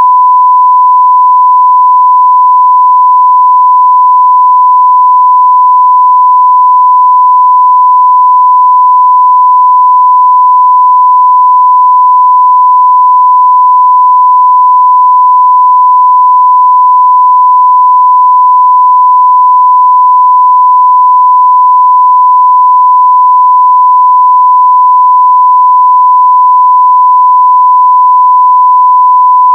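A 1 kHz sine-wave audio test tone at full scale (0 dB): one steady, unbroken pure pitch.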